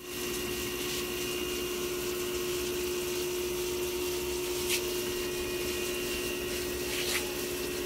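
Steady motor hum with an even hiss and one held tone, with a couple of faint clicks about five and seven seconds in.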